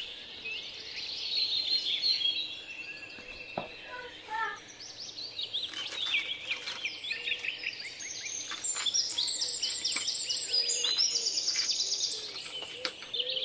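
Birds chirping and trilling continuously, with rapid trills in the second half. A few faint crunches of a knife cutting through crisp baked bread come about four to six seconds in.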